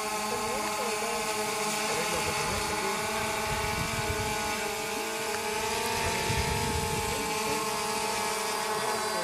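DJI Phantom 2 quadcopter's motors and propellers in flight, a steady multi-tone hum whose pitch wavers slightly.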